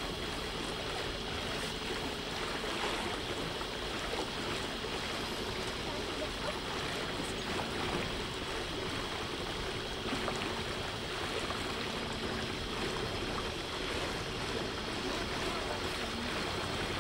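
Steady wash of water along the hull of a river tour boat under way, with a faint steady motor hum underneath.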